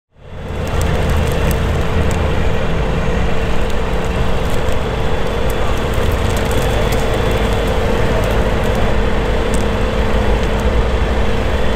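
Sherp amphibious off-road vehicle's diesel engine running steadily under load as it crawls over a dirt mound, a deep rumble with a steady whine, and scattered light clicks; the sound fades in at the start.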